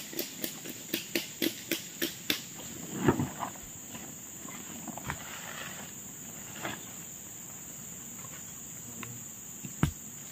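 Steady high drone of forest insects, with a quick run of about ten sharp knocks, roughly four a second, over the first two seconds, then a few scattered knocks and one sharp knock near the end.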